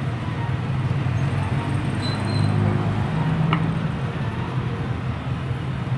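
Steady low motor rumble, like road traffic or an engine running, with a faint click about three and a half seconds in.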